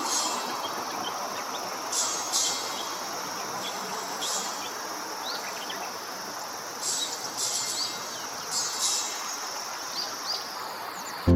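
Male bull-headed shrike singing its mimicry song: short, scratchy high phrases every second or two, mixed with thin rising chirps, over a steady background hiss.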